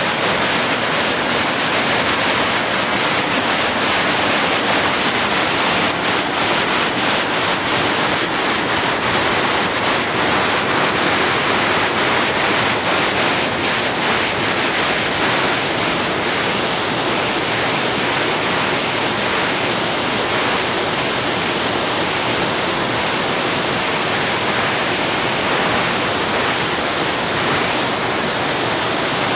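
Waterfall rushing: a loud, steady roar of falling water, with faint splashy crackles over the first half.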